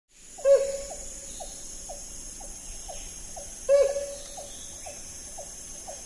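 Hornbill calling: two loud calls about three seconds apart, with fainter, evenly spaced notes about two a second between them, over a steady high hiss.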